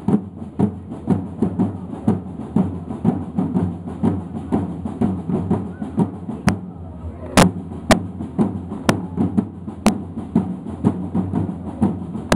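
A group of side drums beating a fast, regular marching rhythm, with several sharp cracks standing out above it in the second half.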